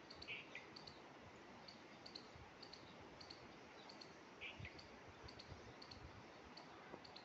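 Near silence: faint outdoor ambience with small high ticks, often paired, about two a second, and two brief chirps, one near the start and one about four and a half seconds in.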